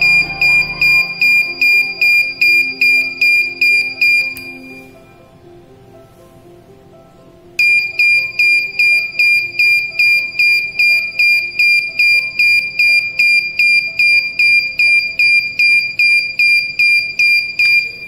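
Fire Bird V robot's on-board buzzer beeping in a steady programmed on-off pattern of about two and a half high beeps a second, 200 ms on and 200 ms off, sounding only while the boot switch is held down. The beeping stops about four seconds in when the switch is released and starts again some three seconds later.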